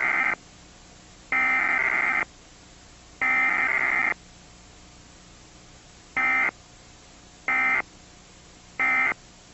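Emergency Alert System SAME digital data bursts: three electronic warbling bursts about a second long, then three short ones about a third of a second long, each separated by about a second. The long bursts are the alert's header and the short ones the end-of-message code.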